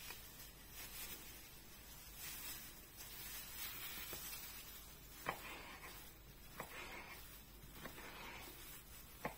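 Faint knife cutting through ham on a wooden cutting board, soft slicing with a few sharp knocks of the blade on the board, the clearest about five, six and a half and nine seconds in.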